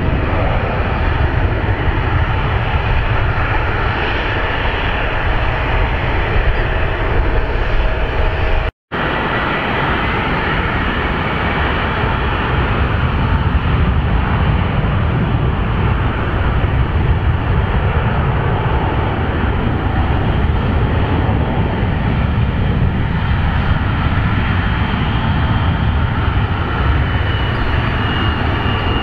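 Jet airliner engines running steadily, a dense rumble with a faint steady whine; the sound drops out for an instant about nine seconds in. After that, an Embraer 175's turbofans run as it rolls onto the runway, with a higher whine coming in near the end as it starts its takeoff.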